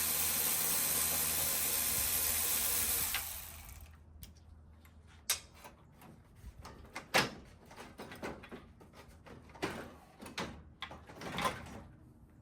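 Cordless power ratchet running steadily for about three seconds as it backs out a bolt, then stops. After that come scattered sharp clicks and knocks of small metal hardware and trim parts being handled.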